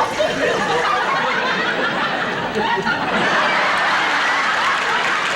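Studio audience laughing, the laughter swelling into applause about three seconds in.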